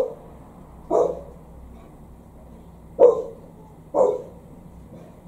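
A dog barking: four short barks in two pairs, each pair about a second apart, with a longer gap between the pairs.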